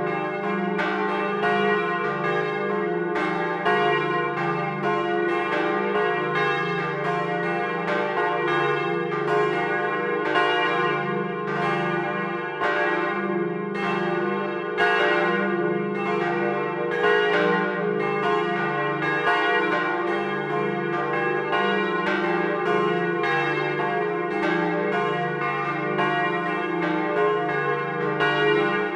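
Church bells swinging and ringing in a continuous peal, their strokes following each other closely so that each stroke rings on into the next, heard close up in the belfry.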